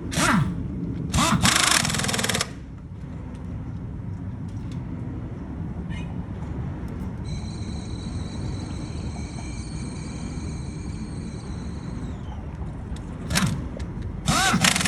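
Pneumatic air tool in use: loud bursts a second or two long near the start and again near the end, over a low steady engine rumble. In the middle, a steady high whine runs for about five seconds and then winds down.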